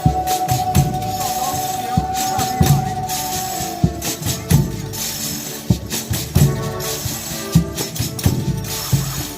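Folia de Reis band playing: tambourines jingling over a steady drum beat, with a long held instrumental note that ends about four seconds in.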